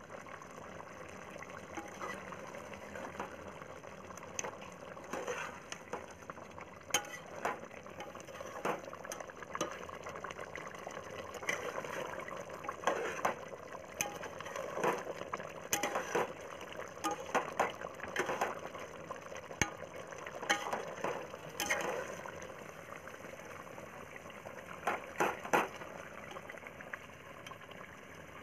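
Chicken gravy boiling hard in a metal pot, bubbling steadily, with scattered sharp clicks and knocks of a metal spatula or ladle against the pot.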